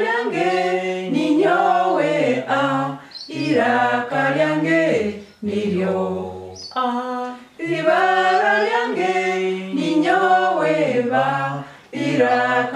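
A small group of voices singing an unaccompanied letter-sound song in Runyoro-Rutoro, going through the alphabet in short phrases with held notes and brief pauses between them.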